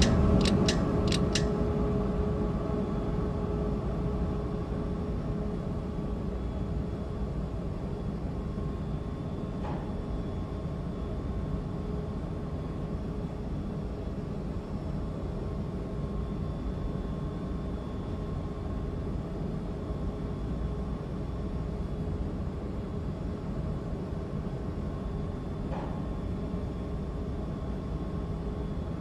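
Steady low hum and rumble of an elevator car in motion, with a few clicks in the first second or so and two faint ticks, about ten seconds in and near the end.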